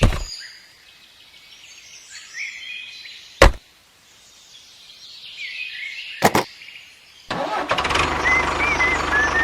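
Birds chirping over a quiet background, broken by three sharp knocks a few seconds apart; a steady engine-like hum starts about seven seconds in.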